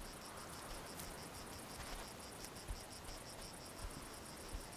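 Insects chirping in a rapid, even pulsing rhythm, faint and high-pitched.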